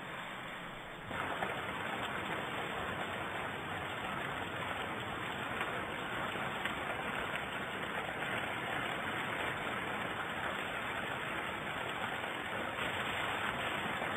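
Heavy rain falling in a steady, dense hiss, stepping up in level about a second in. Mid-way it is heard from a car driving through the downpour on a wet road.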